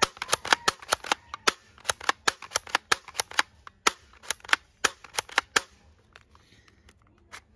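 Rapid, irregular sharp plastic clicks from a toy pump-action shotgun as its action is worked by hand. There are some twenty clicks, a few in quick pairs, and they stop about two-thirds of the way through.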